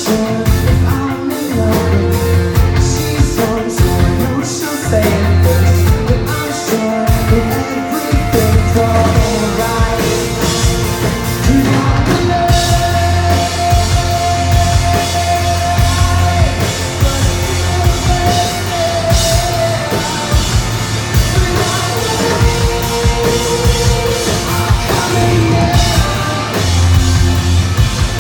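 Live rock band playing loud through a venue PA, with drum kit, distorted guitars and a sung vocal line, as heard on a handheld phone recording from the crowd.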